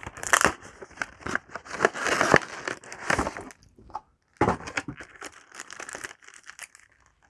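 Yu-Gi-Oh! booster pack's foil wrapper crinkling and tearing as it is opened and handled, in a run of short rustles with a brief pause about four seconds in.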